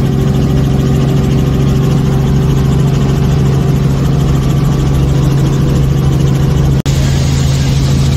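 Helicopter engine and rotor noise heard from inside the cabin: a loud, steady drone with a strong low hum. It drops out briefly about seven seconds in, then resumes with more hiss.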